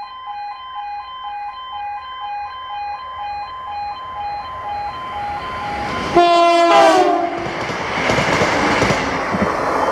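Level crossing warning alarm pulsing between two notes as a ScotRail diesel multiple unit approaches. About six seconds in the train sounds a loud horn blast whose pitch drops as it passes, then the train rushes over the crossing with wheel clatter on the rails.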